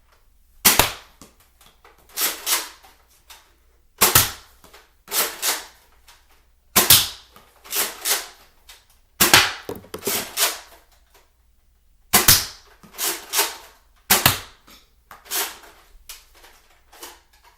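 Toy Nerf dart blaster being fired and cycled over and over. Each cycle is a sharp plastic clack followed by one or two quieter clacks, repeating about every one to one and a half seconds.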